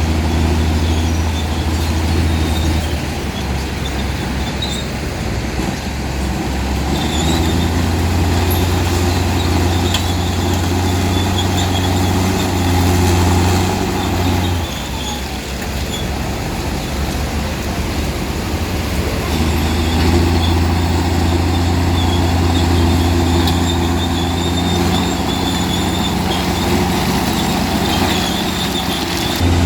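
Komatsu D65P bulldozer's diesel engine working under load while pushing and spreading stone. It eases off for a few seconds about halfway through, then pulls hard again.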